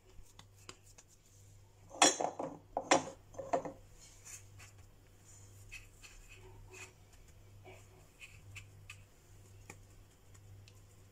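Hands pressing a potato patty into breadcrumbs on a china plate: faint rubbing and scraping, with a quick cluster of louder knocks and clatters of the plate about two to three and a half seconds in.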